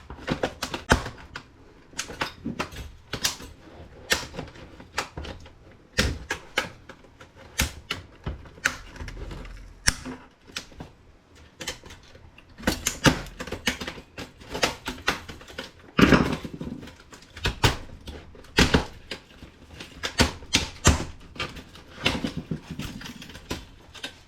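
Irregular clicking, snapping and clattering of small plastic and metal laptop parts as the laptop is pried apart and its pieces handled, with a few heavier knocks.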